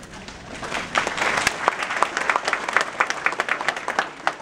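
Audience applauding: many hands clapping, swelling about a second in and thinning out near the end.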